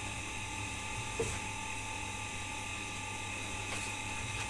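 Steady mechanical hum with several constant high whining tones, as from a small motor running in the background, with a faint tap about a second in.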